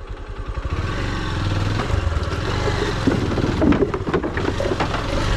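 Small motorcycle engine picking up from idle about a second in and pulling under load, with a few knocks around the middle.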